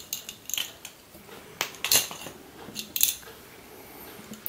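Small steel ball bearings rattling and clicking inside a 1993 Chadwick Miller Mind Teaser clear plastic dexterity-puzzle cube as it is handled and tilted, with plastic cubes knocking together. Irregular sharp clicks, the loudest about two seconds in and again about three seconds in.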